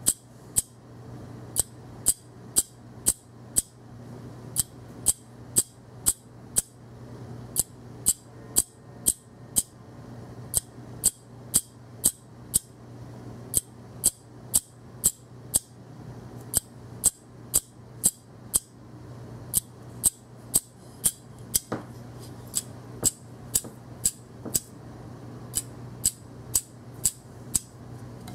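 Electromechanical seven-segment magnetic flip-vane display, vanes salvaged from an old Russian gas pump, clicking as its segments flip over to change the digit. Sharp clicks come about two a second in runs of around five, with short pauses between runs, over a steady low hum.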